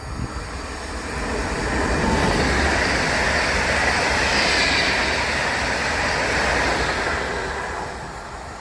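A train running past on the rails: its wheel-and-rail noise swells about two seconds in, holds for several seconds, and fades near the end.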